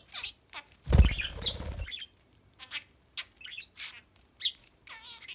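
Pet budgerigar chirping and chattering in quick short calls, with a warbling call near the end. About a second in, a loud rustling burst lasting about a second.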